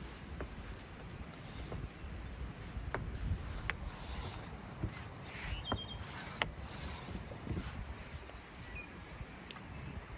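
Quiet outdoor ambience with a steady high insect drone, broken by scattered light clicks and taps and a few short high chirps.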